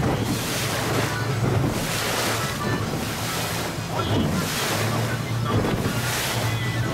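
Wind buffeting the microphone and sea water rushing and splashing past a moving boat, in irregular surges about once a second, over the steady low hum of the boat's engine.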